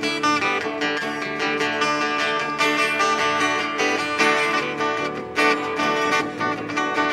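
A small band playing live, with strummed acoustic guitar over electric guitar and bass guitar.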